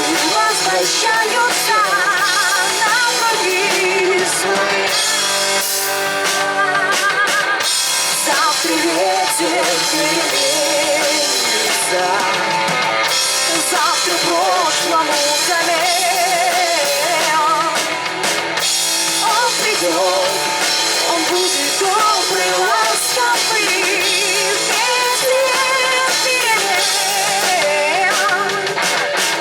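Live rock band music: drum kit and guitars under a wavering lead melody.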